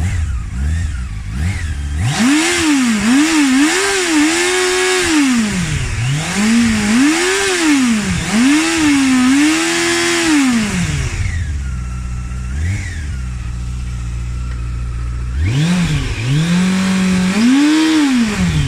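Honda CBF600SA inline-four engine revved in neutral: it idles, then is blipped repeatedly for several seconds with the revs rising and falling. It settles back to idle and is revved twice more near the end.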